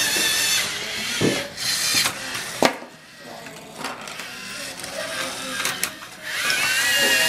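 LEGO Mindstorms robot's electric motors whining as it drives, the pitch shifting. The whine dies away about a second and a half in, with a couple of sharp clacks of plastic LEGO parts, and starts again near the end.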